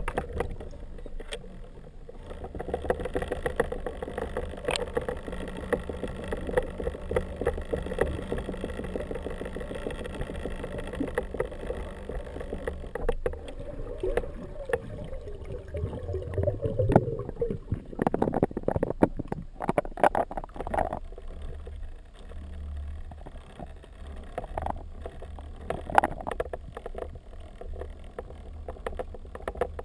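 Underwater noise through an underwater camera's housing: a droning hum with rapid pulsing that fades out about halfway, then a run of sharp knocks.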